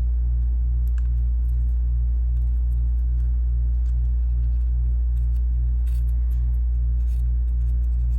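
Loud steady low electrical hum with a throb about three times a second in its upper tones, with faint small ticks and scrapes from handling a cotton swab on a circuit board.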